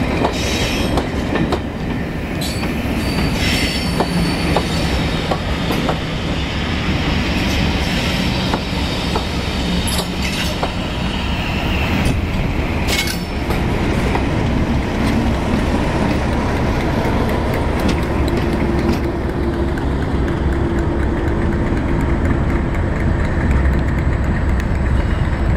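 A train of coaching stock rolls slowly past on the rails. Its wheels squeal a few seconds in, and there are sharp clicks over rail joints around the middle. A Class 37 diesel-electric locomotive follows, its English Electric V12 engine running steadily as it goes by and draws away.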